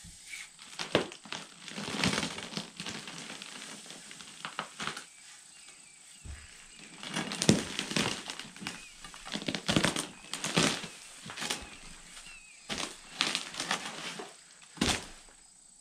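Steel pry bar levering and breaking out a rotten, termite-damaged hewn log: irregular crunching of decayed wood and scattered knocks as the bar strikes and pieces break away, the loudest near the middle and about a second before the end.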